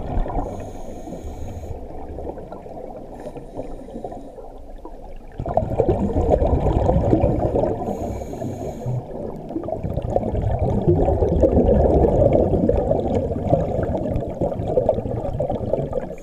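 Muffled underwater churning and gurgling of water, heard through a camera's waterproof housing, getting louder about five seconds in.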